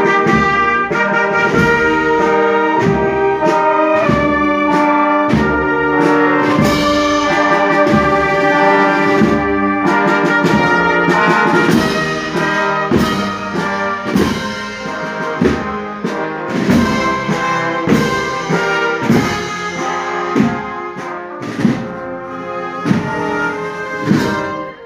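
Street marching band of brass (trumpets, trombones, tuba) and saxophones playing as it marches, over a steady drum beat. About halfway through the brass drops back and the drum strokes stand out more.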